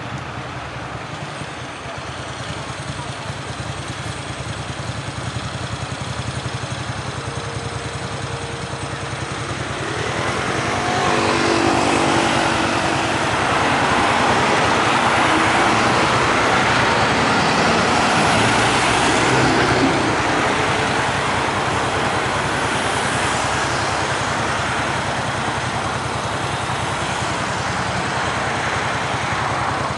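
Road traffic running past a pedestrian crossing, growing louder about ten seconds in as vehicles drive by.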